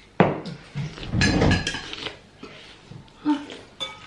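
Metal spoon and fork clinking and scraping against a ceramic soup bowl, with a few sharp clinks and a busier stretch of clatter about a second in.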